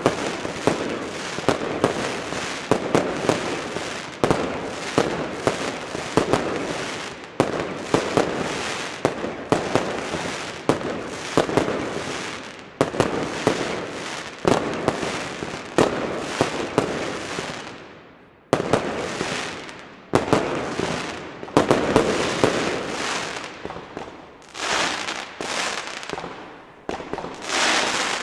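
Consumer firework batteries (cakes) firing: a rapid, continuous string of shots and aerial bursts. The shots die away briefly about two-thirds of the way through, then a new string starts.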